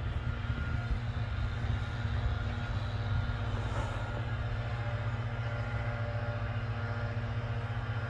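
Steady low rumble of distant road traffic, with a faint hum running through it.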